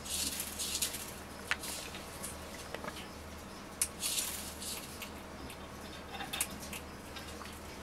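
Ornate uromastyx lizard eating from a bowl of dry seed and lentil mix: irregular crunching and rattling of hard seeds, with a few sharp clicks.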